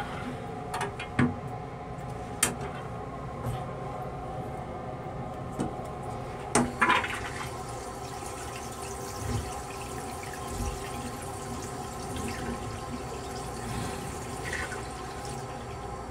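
Railcar toilet flush cycling after its button is pressed: a few mechanical clicks, then a loud clunk a little over six seconds in, followed by a brief rush of blue flush fluid into the stainless-steel bowl. All of it sits over the steady hum of the railcar.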